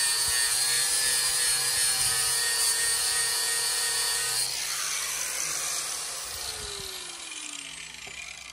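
Corded electric sander with 60-grit paper running against the steel side of a narrowboat, sanding off rust. It is switched off about halfway through and its motor winds down with a falling whine.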